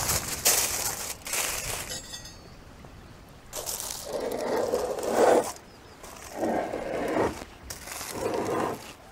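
Aluminium foil crinkling as it is pressed and crimped around a turkey in a pot, then three scrapes as the heavy foil-wrapped pot is slid across the floor of a wood-fired oven.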